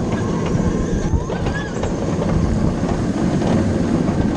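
Alpengeist, a Bolliger & Mabillard inverted roller coaster, running at speed: a loud, steady rumble of the train on its track, with a few clicks near the end.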